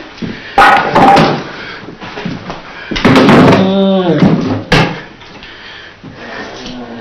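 Several sharp bangs and thuds, with a man's long cry about three seconds in whose pitch rises and falls.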